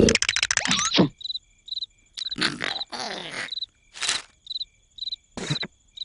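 Cartoon soundtrack with crickets chirping, a short high chirp repeating about twice a second. A rapid run of clicks comes in the first second, and several short noisy cartoon sound effects break in through the rest.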